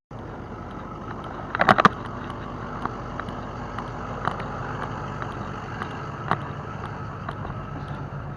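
A motor running steadily with a low hum and wind noise, broken by a short clatter of knocks about a second and a half in.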